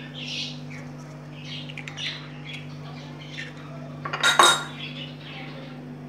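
A sharp clatter of kitchenware against a plastic blender jar about four seconds in, over a steady low hum, with faint short bird chirps scattered throughout.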